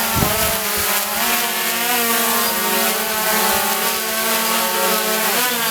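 Small drone's propellers buzzing in flight, several motor pitches wavering up and down together.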